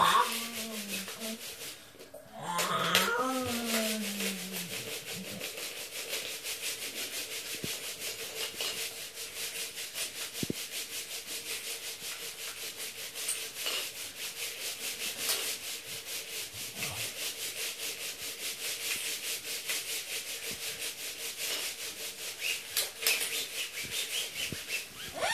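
Lego bricks and pieces rattling and scraping against each other as a Lego city is shaken, a fast, steady clatter. A voice calls out briefly about three seconds in.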